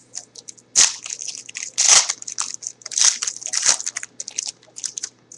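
Foil trading-card pack wrapper being torn open and crinkled by hand: a run of crackling rustles, loudest in clusters about one, two and three seconds in.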